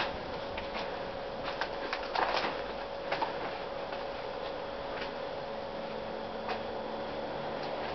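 Irregular light clicks and crunches of footsteps on a debris-strewn floor, over a steady hiss.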